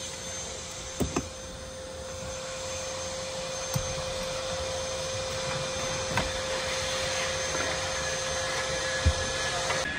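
Steady whirring motor noise with a constant hum, under a few short knocks and clicks from the car's rear seat being handled and worked loose.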